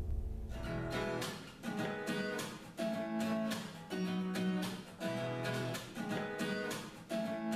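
Background music: an acoustic guitar plays a slow chord pattern, a new chord roughly every second, after a low ringing tone dies away at the start.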